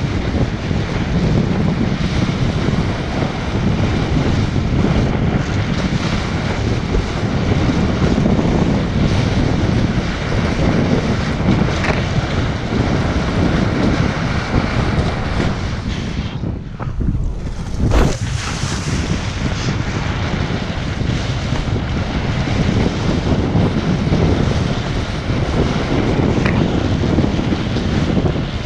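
Strong wind buffeting the microphone of a kitesurfer's camera while riding at speed, over the rushing hiss of water and spray off the board. About two-thirds of the way through the sound goes dull for a moment, then comes one sharp knock.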